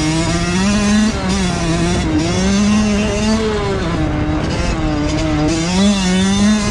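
Two-stroke motocross dirt bike engine being ridden hard, revving up and easing off about three times.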